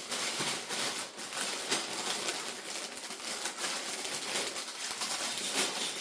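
Crinkling of plastic bags of Lego pieces being handled and sorted through, a dense, steady crackle with small clicks of the pieces inside.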